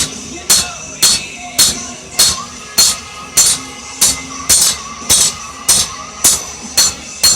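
Hammer blows on hot steel over an anvil, about two a second, each with a bright metallic ring: lawnmower-blade steel being hammered out at the forge.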